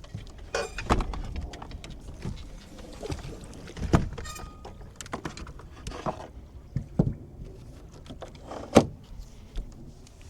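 Scattered knocks and clunks of things being handled aboard a fishing boat, the loudest about four seconds in and again near nine seconds.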